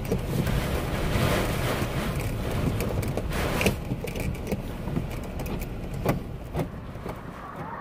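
Hurricane-force wind buffeting the microphone: a steady rush with a heavy low rumble. Short sharp ticks and knocks are scattered through it.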